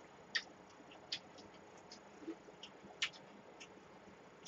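Faint, scattered wet mouth clicks of chewing with the mouth closed, a few short ticks spread irregularly.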